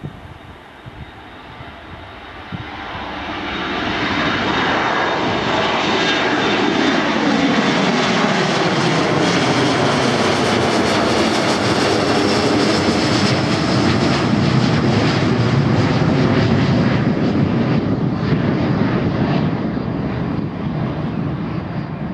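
Boeing 737-400's CFM56 turbofan engines at take-off power as the jet climbs out past and over the listener. The sound builds over the first few seconds into a loud, steady jet noise. Its tones fall in pitch as the aircraft passes, and the noise eases slightly near the end as it climbs away.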